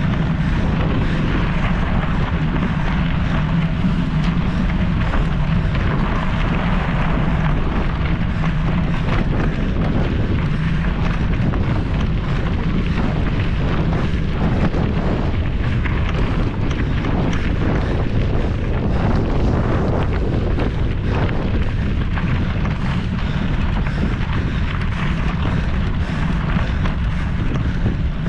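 Mountain bike ridden fast over rough trail: steady wind buffeting on the microphone with a low rumble, and a constant rattle of small knocks from the bike.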